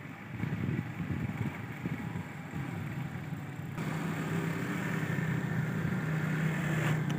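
A motor vehicle's engine running, a low hum that turns steady about four seconds in and slowly grows louder.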